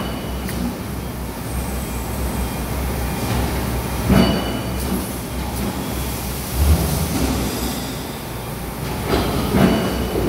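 Steady low rumble and hiss of background machinery noise, with a few brief louder swells about four, six and a half and nine and a half seconds in.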